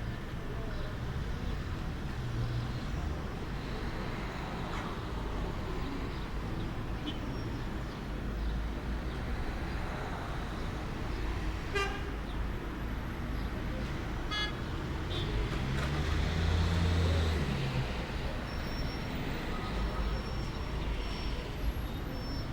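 Outdoor ambience dominated by distant road traffic: a steady low rumble, swelling as a vehicle passes about sixteen seconds in, with a few faint high chirps.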